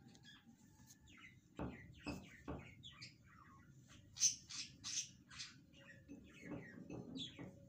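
A spatula knocks against a frying pan a few times as a slice of bread is pushed around it. From about four seconds in comes a run of short high chirps, about three a second.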